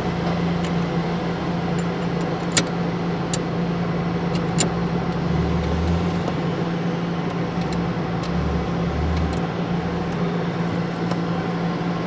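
A steady low hum of background machinery, with a few scattered light clicks and taps from the ignition switch housing being handled and fitted back onto the steering column.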